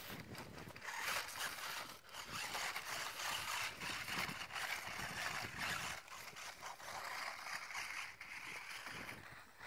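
RC rock crawler's motor and gears whirring in spurts as it crawls over rock, easing off briefly a few times.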